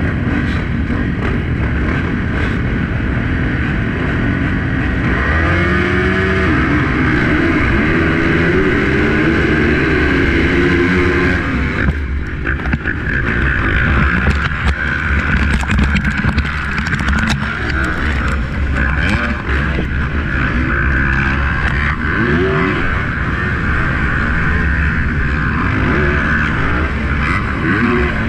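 Yamaha YZ450F single-cylinder four-stroke engine at full throttle off a motocross start, its pitch climbing again and again through the gears, with other dirt bikes running close by. The throttle is chopped about twelve seconds in, followed by a run of sharp knocks and ticks as the bike races in the pack.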